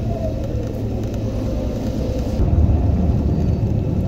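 Vehicle driving on a rough dirt road, heard from inside: a steady low rumble of engine and tyres that gets a little louder about halfway through.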